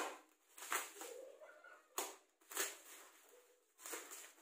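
Plastic parcel wrapping rustling and crinkling as it is handled and pulled open, in several short bursts.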